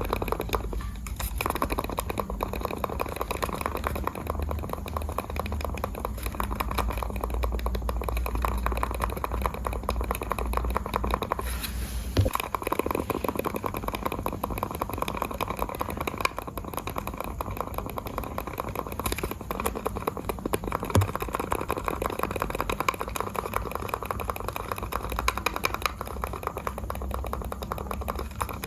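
Computer mouse buttons clicking rapidly and continuously, a dense stream of small clicks over a low rumble, with a couple of heavier knocks.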